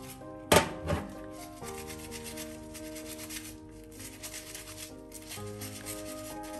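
Rubber-gloved hands rubbing soapy lather together over a stainless steel sink, with two sharp knocks about half a second apart near the start, over background music.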